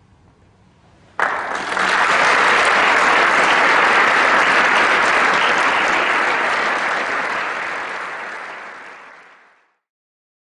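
Audience applause breaks out suddenly about a second in, holds steady, then fades away near the end.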